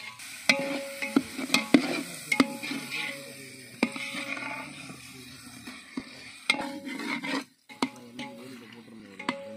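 A long steel ladle stirring tomato and onion masala frying in oil in a large aluminium pot. The oil sizzles while the ladle scrapes the pot and clinks sharply against the metal rim and sides several times.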